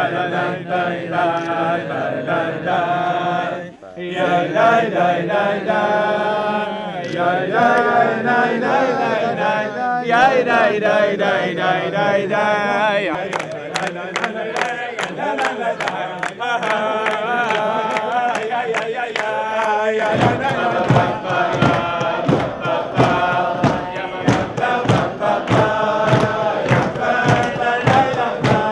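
A crowd singing together in a chant-like unison, with hand-clapping. From about two-thirds of the way through, a steady beat of roughly two thumps a second runs under the singing.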